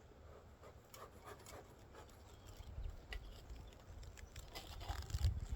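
Wind rumbling on the microphone, swelling toward the end, with scattered light clicks and rustles of handling.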